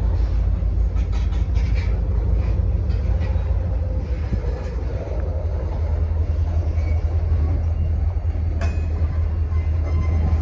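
Freight train cars, covered hoppers and tank cars, rolling past close by: a steady low rumble of steel wheels on rail with scattered clicks, and one sharp click near the end.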